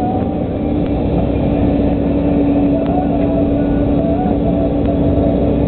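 Volvo EC140 LC excavator's diesel engine running steadily at working revs with a constant hum, heard from inside the cab, while the bucket digs into peat. A higher whine wavers in pitch above the engine.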